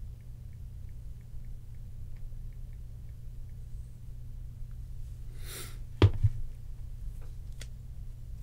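Steady low hum with faint, evenly spaced ticking. About six seconds in, a short rustle is followed by a sharp double knock on the tabletop, then a couple of light clicks, as cards are handled on the table.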